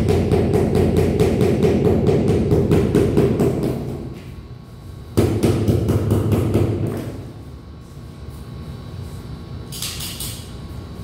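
Rubber mallet tapping a large ceramic floor tile to bed it into the mortar, in a fast run of about five blows a second that stops about four seconds in. One sharper knock follows about a second later.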